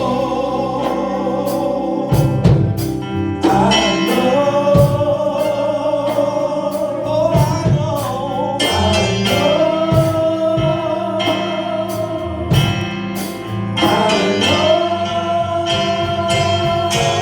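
Gospel worship singing: a slow praise song with singers holding long notes, over a church band with drum and cymbal hits.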